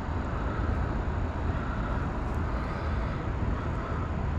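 Steady low rush of river current flowing past boulders.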